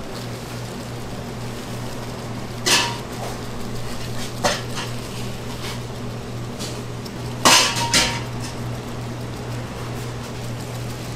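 A few sharp metal clanks of bakery equipment or trays being handled, two of them ringing briefly, over a steady machine hum.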